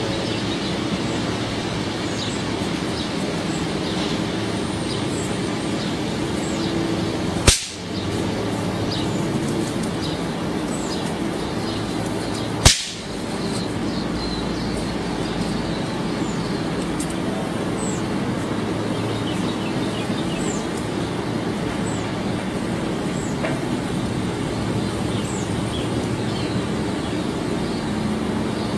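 Two sharp, loud snaps about five seconds apart, typical of high-voltage sparks arcing on the electrified metal chains of a homemade trap. Between them runs a steady hiss and low hum, with faint high chirps.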